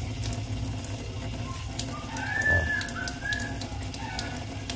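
Thin stream of tap water trickling into a stainless-steel sink, with a steady low hum underneath. A few short high chirps come about halfway through.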